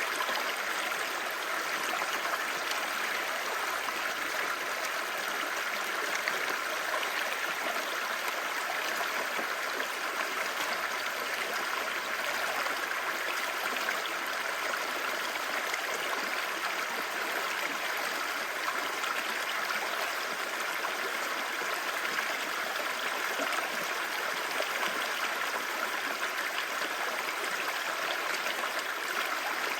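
Clear stream babbling, a steady, even rush of running water.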